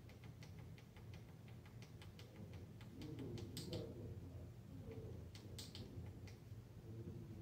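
Small push-button on a digital temperature controller clicking as it is pressed over and over, about four quick, faint clicks a second, to step the target temperature up; two louder clicks come a little past halfway.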